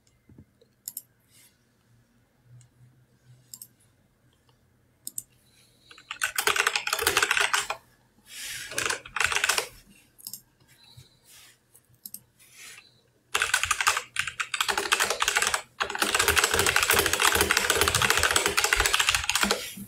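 Typing on a keyboard close to the microphone. A few scattered key clicks come first, then fast runs of clattering keystrokes start about six seconds in, and the longest run fills most of the second half.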